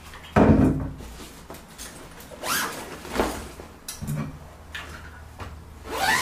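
Sports duffel bag being handled on a chair: a soft thump about half a second in, then several brief rustles and swishes of the bag's fabric.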